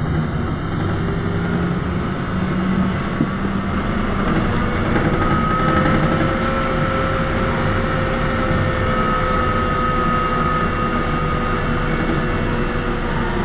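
Inside a moving BKM 321 trolleybus: steady road and tyre rumble, with the electric traction drive whining, a tone that rises slightly then fades away between about four and eleven seconds in.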